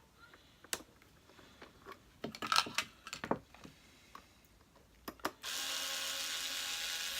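Scattered clicks and taps of parts being handled, then about five seconds in a small electric screwdriver runs steadily for about two seconds, undoing the screws at the back of the vacuum cleaner's housing.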